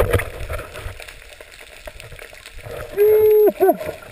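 Underwater water noise with clicking at the start, then about three seconds in a muffled voice-like call, held for half a second and dropping, followed by a second short falling call.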